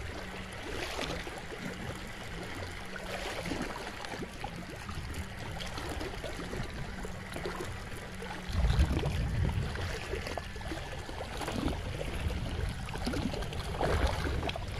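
Seawater lapping and splashing against shore rocks, a steady wash with low rumbling bumps. The loudest bump comes about eight and a half seconds in.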